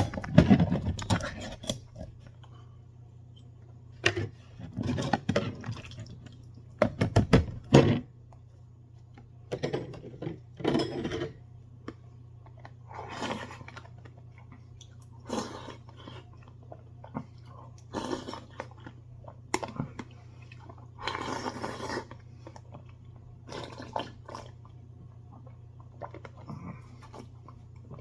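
Someone eating chicken noodle soup: a spoon clinking and scraping in the bowl, with slurping and chewing in short bursts every second or two, over a steady low hum.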